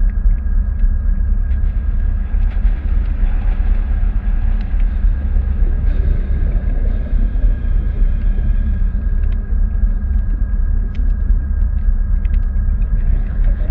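Steady low motor rumble with a constant thin whine above it and a few faint scattered clicks.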